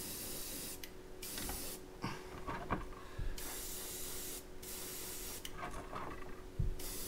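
Iwata HP-C gravity-feed airbrush spraying paint, a hiss that stops and starts several times as the trigger is let off and pulled again. A few faint knocks are mixed in.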